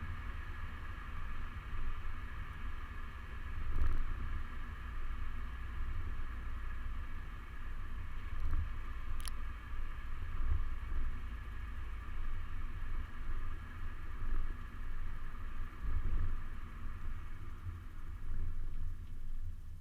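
Suzuki Swift driving off-road with its engine running: a steady drone over an uneven low rumble, with one brief high squeak about nine seconds in.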